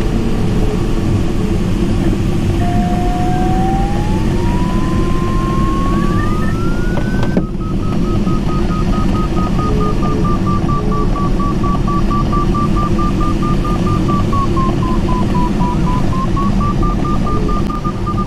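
Steady rush of airflow around the cockpit of a Mini Nimbus HS7 glider, with the electronic variometer's tone sliding up in pitch. After a click about seven seconds in, the tone turns into fast, even beeping that wavers slightly in pitch, which signals that the glider is climbing in lift.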